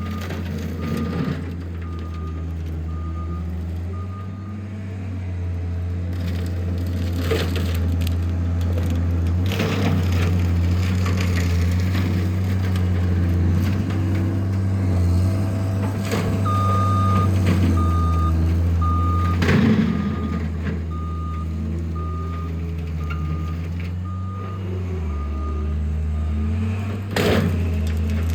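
A John Deere skid steer's diesel engine runs steadily under load. Its backup alarm beeps in an even series near the start, and again for several seconds past the middle while the machine reverses. Brush and small trees crash and splinter several times as the brush hog cutter chews through them.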